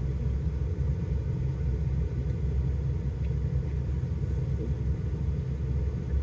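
Steady low rumble inside a parked vehicle's cabin.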